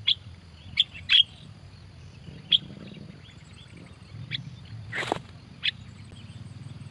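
Birds calling in short, sharp, high chirps, one every half second to a second. A single loud sharp click comes about five seconds in.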